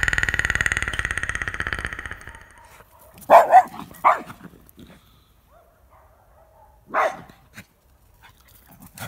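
A dog barks twice in quick succession a few seconds in, then once more a few seconds later. Before that, a high, fast-pulsing sound fades away over the first two seconds.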